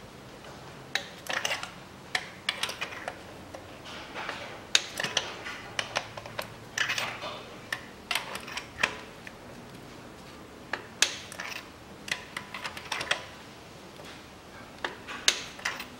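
Ratcheting torque wrench on a socket extension clicking in repeated short bursts while spark plugs are turned in and tightened, with sharp metal-on-metal ticks.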